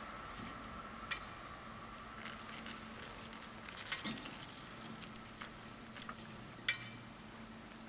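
Level-crossing barrier drives starting to raise the booms, a sign the crossing is reopening. A faint steady motor hum runs under scattered clicks, with a cluster of clicks about four seconds in and a sharper click near the end.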